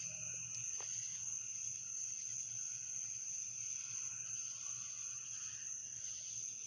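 Loud chorus of crickets: a steady, unbroken high-pitched trill, with a second, lower insect drone beneath it.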